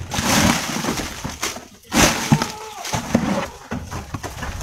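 Crackly rustling and clattering in a goat pen, with a few sharp knocks.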